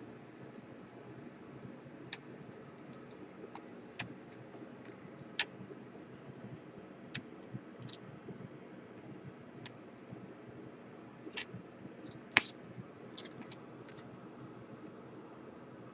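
Scattered small clicks and taps, irregular and a few seconds apart, from tools and plastic and metal laptop parts being handled during disassembly, over a faint steady background hum.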